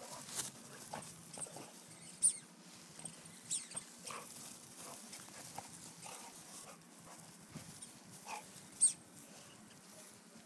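Bullmastiff puppy playing with a toy in its mouth: scattered short dog noises and bumps, with two sharper sounds, one about two seconds in and one near the end.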